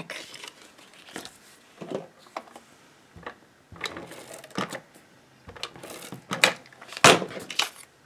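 Cardstock being handled and folded on a cutting mat: light paper rustling and scattered small taps and clicks, with a louder sharp knock about seven seconds in as a hard plastic case presses down on the card.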